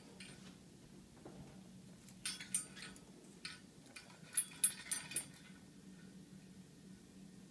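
Light clicks and clinks from an African grey parrot handling its rope perch and hanging toys, in two short clusters about two and four and a half seconds in.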